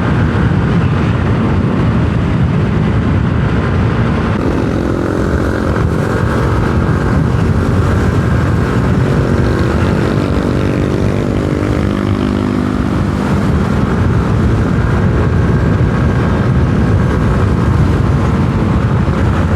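Yamaha Aerox 155 scooter riding along at steady speed, with a continuous loud rushing of engine and wind. From about four seconds in to around thirteen seconds, a steady engine hum stands out above the rush.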